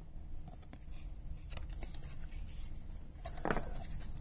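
Baseball trading cards being handled and slid against one another in the hands: soft rubbing and light clicks of card stock, with a slightly louder click about three and a half seconds in.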